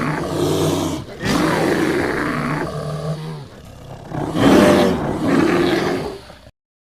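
Bear roaring, three long rough roars in a row: the first ends about a second in, the second follows at once, and the third, the loudest, swells about four and a half seconds in. The last roar cuts off abruptly shortly before the end.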